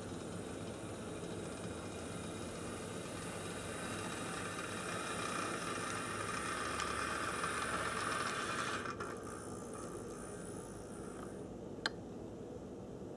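HO-scale brass Overland Models Union Pacific Dash 8-40CW model locomotive running on its track: a steady mechanical whir of motor and gearing with a light rattle, swelling louder for a few seconds, then dropping off suddenly about nine seconds in. A single sharp click near the end.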